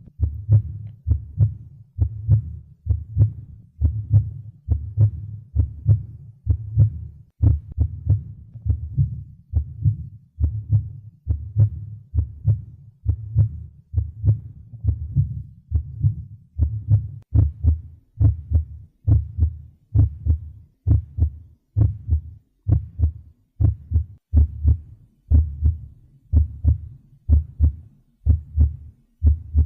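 Normal human heart sounds heard through a stethoscope: a regular two-part beat, the first and second heart sounds, repeating as deep thumps a little over once a second. Regular rhythm in two beats, normal-intensity sounds and a rate between 60 and 100: a healthy heart.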